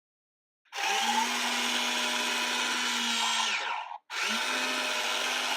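Small electric gear motor of a remote-control toy forklift running with a steady whirring hum, twice: about three seconds, a brief stop, then about two seconds more.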